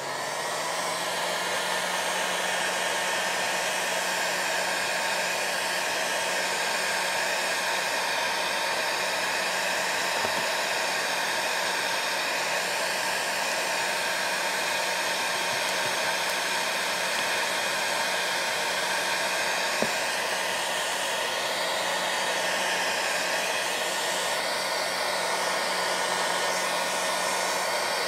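Handheld hot-air heat tool switched on and blowing steadily, with a low motor hum, as it dries a wet coat of crackle medium on card to speed up the crackling.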